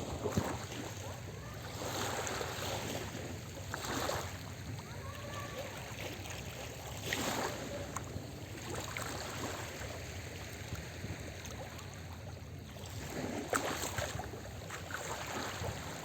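Small sea waves breaking and washing up the shore in separate surges every few seconds, the loudest about 7 and 13 seconds in.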